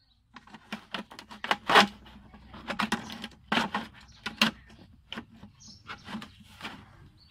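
Plastic knocks, taps and scrapes as short PVC pipe pieces are pushed into holes cut in a large plastic water jug: an irregular clatter, the loudest knock about two seconds in.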